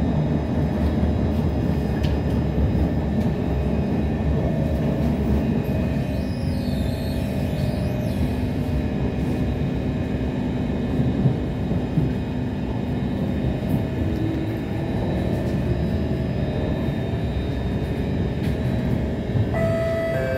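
Running noise heard inside a moving SMRT C151 metro train carriage: a steady, even rumble of wheels on rail and running gear, with faint steady tones over it. About a second before the end, a new set of clear steady tones comes in.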